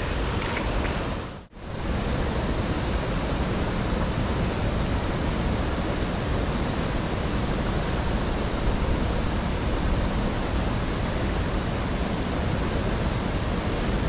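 Flowing water of a small stream, a steady even rush, briefly dropping out about a second and a half in.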